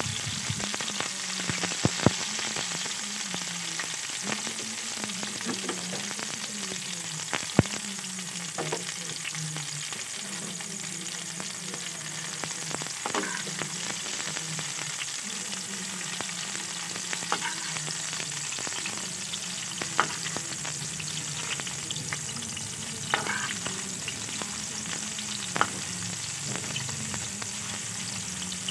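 Mung bean sprouts frying in hot oil in a pan, a steady sizzle as a spatula stirs and turns them, with a few sharp clicks of the spatula striking the pan.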